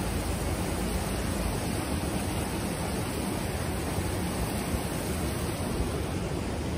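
Steady rush of a fast-flowing mountain river running over rocks.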